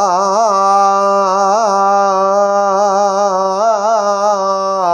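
A man singing a Punjabi naat unaccompanied, holding one long note with small wavering turns in pitch, which ends just before the next line.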